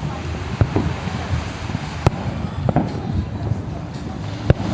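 Aerial fireworks bursting: three sharp bangs spread over a few seconds, over a steady low rumble.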